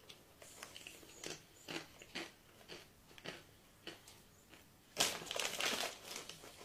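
Salted potato chips being bitten and chewed: a run of short, crisp crunches, with a louder, denser stretch of crunching about five seconds in.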